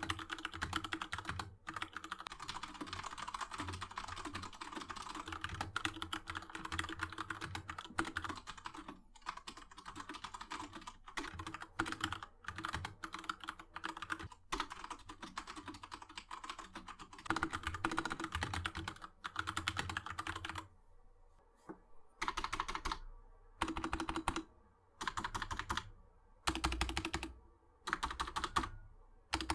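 Typing on a mechanical keyboard with brown tactile switches, keys clacking in a fast continuous stream. About two-thirds of the way in it breaks into short bursts of keystrokes with brief pauses between them.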